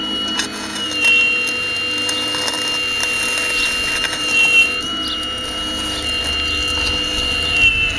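Radio-controlled scale Hitachi excavator working, its electric drive giving a steady high-pitched whine that dips and shifts in pitch a few times as the bucket and arm move under load through the soil, with light clicks.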